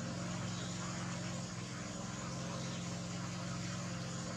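Steady low droning hum with a constant hiss over it, unchanging throughout.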